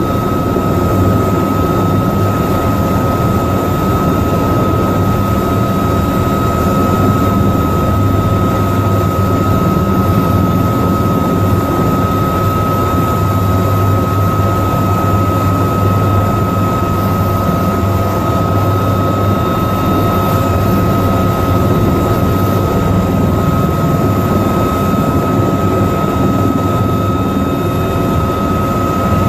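AH-1Z Viper attack helicopter running with its rotor turning, heard from inside the cockpit: the twin turboshaft engines and four-blade main rotor make a loud, steady noise, a high whine held over a low drone.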